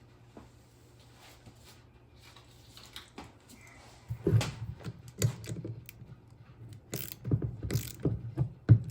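Hand socket ratchet clicking in short runs, mixed with knocks of tools and metal parts, starting about four seconds in.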